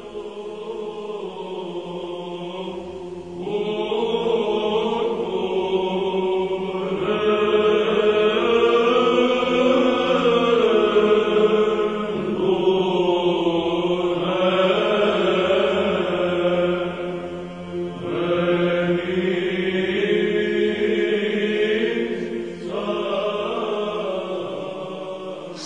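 Orthodox church chant: voices sing a slow melody in long phrases over a steady held drone note, softer at first and fuller from about three seconds in.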